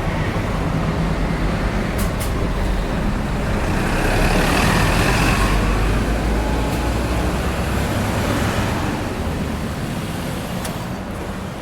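Japanese city bus engine running at a stop, with traffic on the avenue behind it; a hissing swell rises and falls about four to six seconds in, and the sound fades out near the end.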